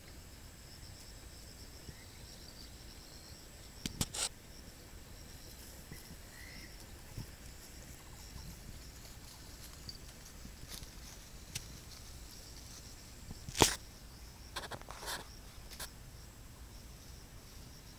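Faint, steady high-pitched insect chirring from the wooded hillside, broken by a few short sharp clicks, the loudest about two thirds of the way through.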